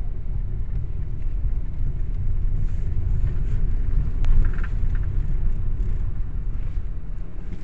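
Steady low rumble of a car driving slowly, heard from inside the cabin, with one brief click a little past halfway.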